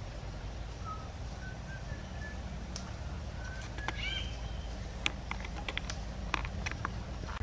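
Forest ambience: a bird gives a run of short whistled notes, then a curved, rising-and-falling call about four seconds in, over a steady low background noise. A few sharp clicks follow in the second half.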